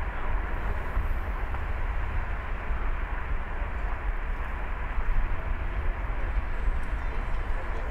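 A car driving slowly along a city street: a steady low rumble of road and engine noise with tyre hiss, without distinct events.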